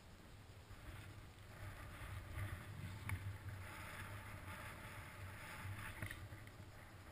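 Faint wind and handling noise on a GoPro's microphone: a low, uneven buffeting, with rustling and crunching that picks up about a second and a half in as the wearer turns, and two sharp clicks.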